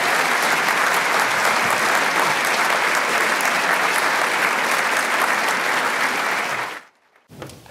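Audience applauding steadily, a dense even clapping that cuts off suddenly near the end.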